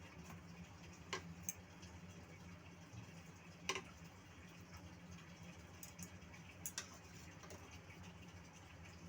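Faint low hum with a handful of short, light clicks scattered through it, the loudest a little under four seconds in.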